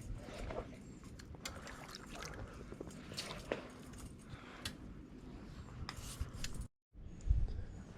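Shallow water sloshing and splashing around a wader, with scattered small clicks. The sound cuts out for a moment near the end and comes back with low rumbling.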